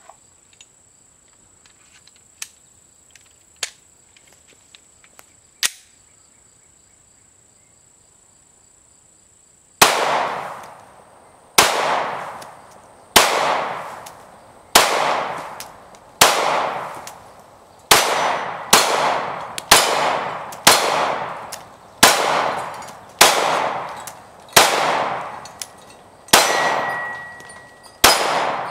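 A 9mm Glock 19 Gen 4 pistol fires at a steady pace, about fourteen shots spaced a second or two apart, each with a long echoing tail. The shooting starts about ten seconds in, after a quiet stretch with a few faint clicks. Near the end a short ringing tone follows one of the shots.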